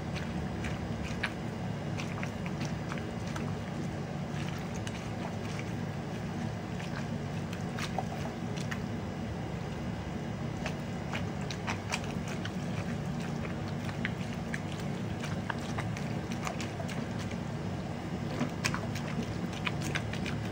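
A spatula stirring and folding a thick, wet mixture of cream cheese, spinach and ground sausage in a glass bowl: continuous squishing with scattered light clicks and scrapes, over a steady low hum.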